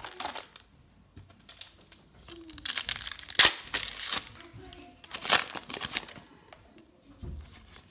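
Foil wrapper of a Topps Star Wars Holocron trading card pack being torn open and crinkled by hand, in bursts, loudest a few seconds in and again about five seconds in.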